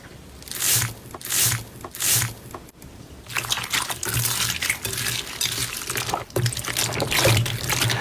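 Slime being squished: three separate wet squelches, then from about three seconds in a continuous stream of small sticky pops and crackles.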